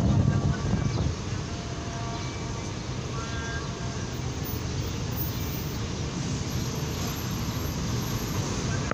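Steady outdoor city traffic noise: a continuous low rumble of road vehicles, a little louder in the first second.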